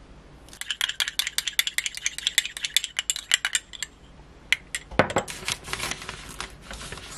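Metal spoon stirring a sauce in a small ceramic bowl, ticking rapidly against the rim and sides for about three seconds. About five seconds in, scissors cut through a plastic tortilla package.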